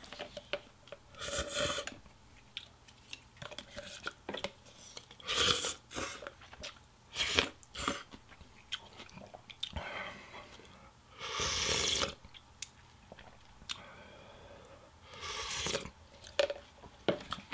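Close-up eating of pho: several slurps of rice noodles and broth from a soup spoon, one of them lasting about two seconds, with wet chewing in between.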